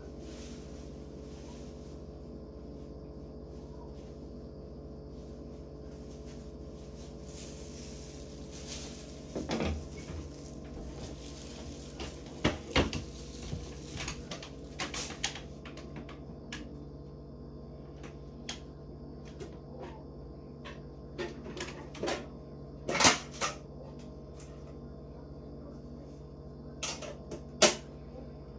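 Rummaging through things: a scattered series of knocks, clicks and clatters as objects are moved and set down, some sharper and louder than others, over a steady low hum.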